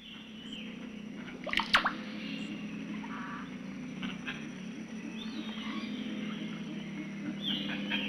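Birds calling over a steady, low pulsing background chorus, with a few sharp, loud notes about a second and a half in.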